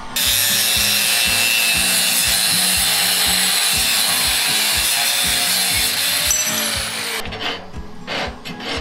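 Angle grinder running its disc against a steel bar clamped in a vise, a loud steady hiss that cuts off suddenly about seven seconds in. Then a hand file rasps along the steel in a few strokes, about two a second.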